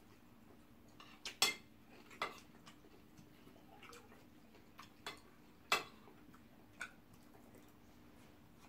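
Metal spoons clinking and scraping against ceramic plates of rice and stew: a handful of short, sharp clinks, the loudest about a second and a half in and again near six seconds.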